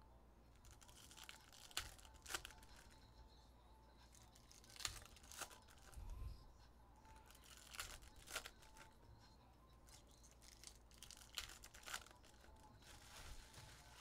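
Foil trading-card pack wrappers being torn open and crumpled, with cards handled: faint, with a handful of sharp crinkles and rips spread irregularly through it.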